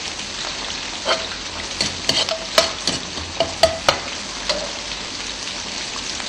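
Hot oil sizzling steadily in a wok, with a metal cooking utensil clinking against the wok about ten times between one and four seconds in.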